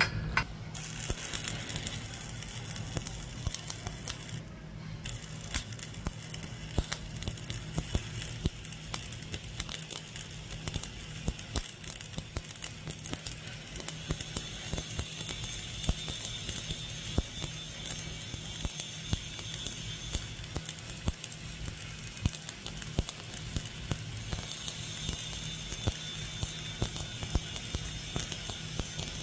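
Shielded metal arc (stick) welding with an E7016 low-hydrogen 3.2 mm electrode: the arc crackles and sputters steadily as it lays a vertical fillet weld, over a steady low hum.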